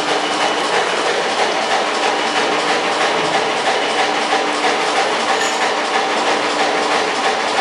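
Loud, steady mechanical rattling noise with a fast, continuous clatter.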